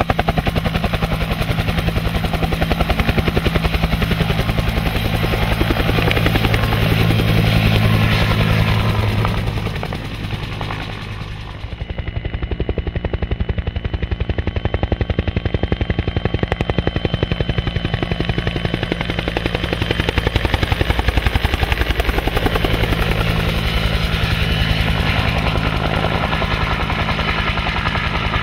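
Bell UH-1 Huey helicopter flying, its two-bladed main rotor beating in a fast, even thump over the turbine, with a thin high whine through the middle. The sound dips briefly about ten seconds in and then comes back.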